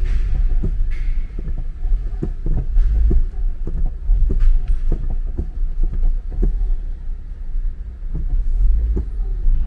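Low rumble of a car driving slowly, heard inside its cabin, with scattered light knocks and clicks.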